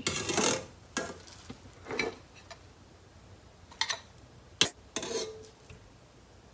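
A small wire-mesh strainer fishing dried sardines out of dashi in an aluminium pot, with half a dozen light clinks and taps of metal against the pot and a ceramic bowl; the sharpest comes about four and a half seconds in.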